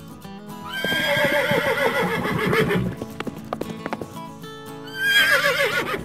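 A horse neighing twice over background music: a long whinny that quavers and falls in pitch from about a second in, then a shorter one near the end.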